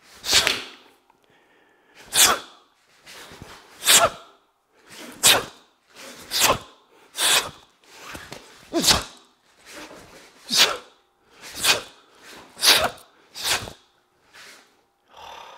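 About a dozen sharp, hissing bursts of breath, one with each technique of the Naihanchi Shodan karate kata done at speed, unevenly spaced about a second apart. These are forced exhalations timed to the strikes and blocks.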